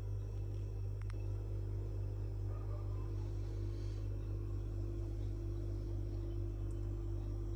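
Steady low hum with a faint steady tone above it; a single sharp click about a second in.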